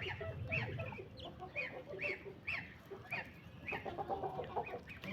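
Chickens clucking, a run of short calls about two a second.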